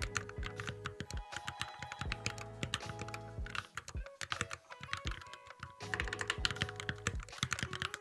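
Fast typing on a Keychron Q11 split mechanical keyboard fitted with Hacker Mint keycaps: a dense run of key clicks that thins briefly a little before halfway, over background music.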